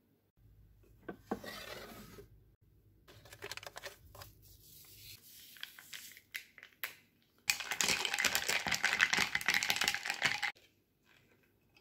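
A packet torn open and its powder emptied into a glass of ice water, with light rustling and clicks. Then a thin metal stirrer is spun in the glass for about three seconds, clinking rapidly against the ice and glass, the loudest part, stopping suddenly.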